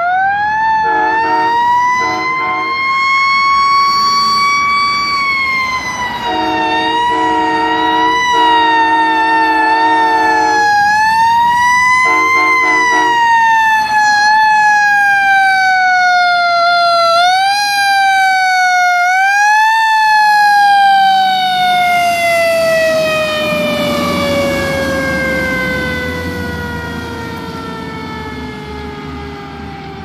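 1996 Spartan fire engine's siren wailing, winding up over the first few seconds, with its train horns sounding chord blasts over it several times: two short, two long, then two short. The siren yelps twice past the middle, then falls in one long descending tone over the last ten seconds as the engine's rumble comes through.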